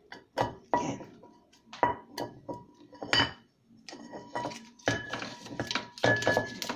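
An empty tin tuna can being handled on a plastic cutting board while its paper label is peeled off. Scattered light knocks and clinks come first, then from about five seconds in a denser stretch of scraping and rustling, with the metal can ringing faintly.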